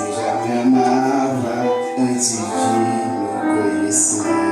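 A song playing, a voice singing a melody over instrumental accompaniment.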